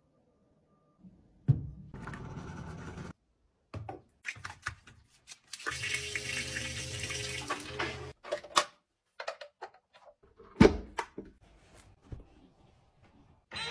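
Electric smart toilet flushing: a rush of swirling water over a steady low hum for about two and a half seconds in the middle. Shorter bursts of noise come before it, and a sharp thump follows about three seconds later.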